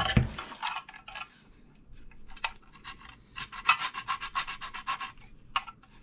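A clatter of handling at the start, then a steel file scraped back and forth across a vacuum cleaner motor's wire winding in short rasping strokes, quickening into a fast run past the middle. The scratch test shows silver under the enamel: the winding is aluminum, not copper.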